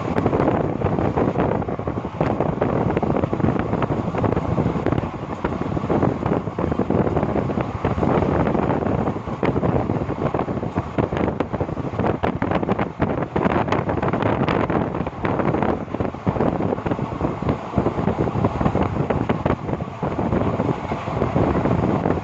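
Train running along the track: a steady rumble of wheels on rails with frequent irregular clicks and knocks, and wind buffeting the microphone.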